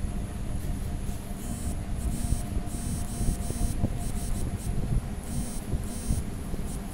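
A steady electric motor hum, with several brief high-pitched hissing bursts.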